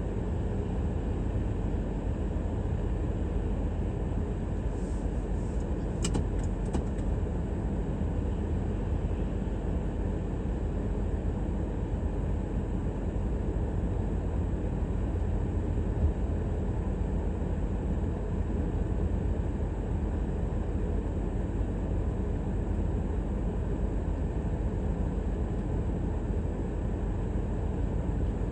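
Car driving, a steady low rumble of road and engine noise. There are a few brief high-pitched squeaks about six seconds in and a single low knock past the halfway point.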